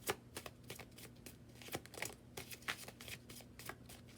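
A deck of tarot cards being shuffled and handled by hand: a run of quick, irregular card snaps and slides.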